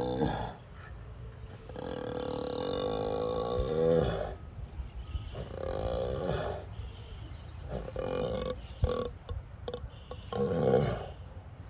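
A bull snoring in deep sleep: a run of drawn-out, pitched snores, each one to two seconds long, with short pauses between breaths.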